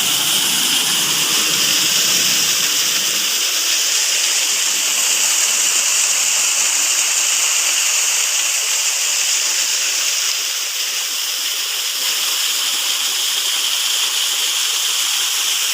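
Nanga-Nanga waterfall: a steady rush of falling water, heard mostly as an even hiss. A faint low rumble under it drops away about three seconds in.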